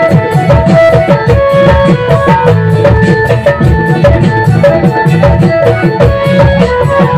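Live band playing an instrumental passage of an Assamese song: a keyboard and guitar melody over a steady, driving hand-drum and percussion rhythm.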